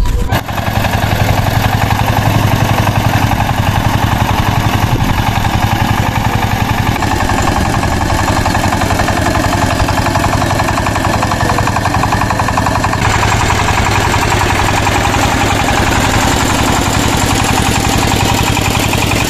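Two-wheel walking tractor's single-cylinder diesel engine running steadily with a fast, even clatter as the tiller works through a flooded rice paddy.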